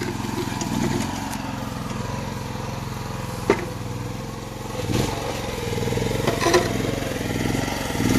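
JSB MS-TE113 mini excavator's small engine running steadily as the machine works. A sharp knock comes about three and a half seconds in, and more knocks and scraping follow near the end as the bucket shifts concrete path slabs.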